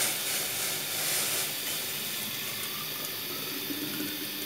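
Hot water being poured from a glass into a steel-necked insulated bottle: a steady pour splashing into the bottle.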